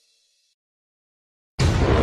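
Background music fades to silence, then synthesizer intro music for the channel logo starts abruptly near the end.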